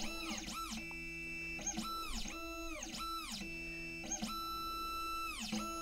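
Condor Dolphin XP-005 key cutting machine running its cutting calibration: its motors whine in repeated sweeps, each rising in pitch, holding steady, then gliding back down, over a steady lower hum.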